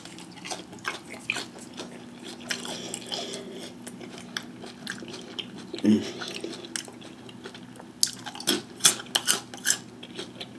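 A person biting and chewing Flamin' Hot Cheetos–crusted fried pickles: a string of crisp crunches, with a quicker run of louder crunches about eight seconds in.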